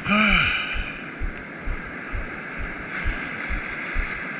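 Surf washing over the shallows, a steady hiss of foam, with wind buffeting the microphone in low thumps several times a second. Right at the start a short voiced groan rises and falls in pitch, lasting under a second.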